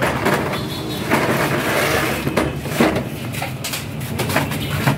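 Glass bottles rattling and clinking in plastic drink crates as they are carried and set down, with several sharp knocks of crates and bottles.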